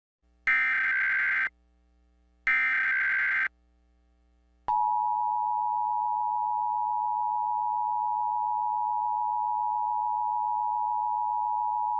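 Emergency Alert System signalling: two one-second bursts of SAME header data tones warbling between two high pitches, then about a second later the EAS attention signal begins, a steady two-tone 853 and 960 Hz alert tone.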